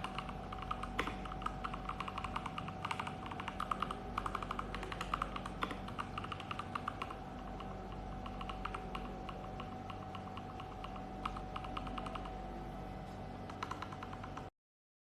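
Rapid typing on the LEAVEN H96 mechanical keyboard: a dense, irregular run of keystroke clicks, with a faint steady tone underneath. The sound cuts off suddenly near the end.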